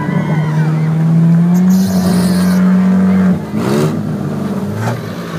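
Demolition derby car engines running at high revs: one engine is held hard and steady, creeping slightly higher, then drops off a little past halfway with a short sharp crash-like noise. After that the revs rise and fall as the cars push against each other.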